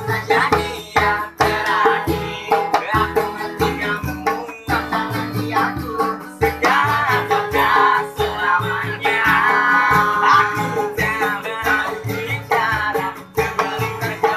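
Street band playing: two acoustic guitars strummed over a steady beat on a hand-beaten homemade drum of plastic containers, with the guitarists singing.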